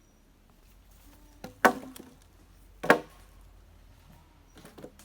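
Wood being chopped with a blade: two sharp, loud strikes about a second and a half apart, then two lighter knocks near the end.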